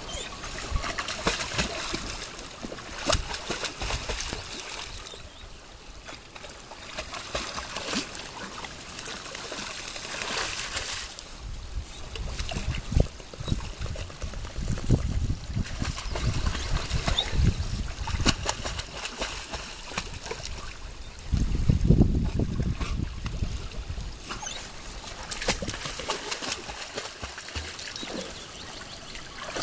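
Dogs splashing in a shallow stream: a Portuguese water dog paddling and thrashing through the water with irregular splashes, over running, trickling water. A louder low rumble comes a little over two-thirds of the way through.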